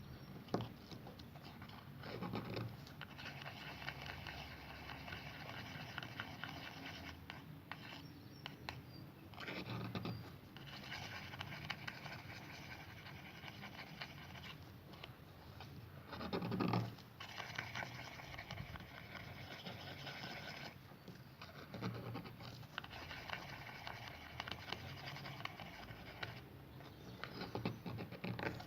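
Faint, irregular scraping and scratching of a utensil stirring a glue-free slime mixture in a container, with a few brief louder swells.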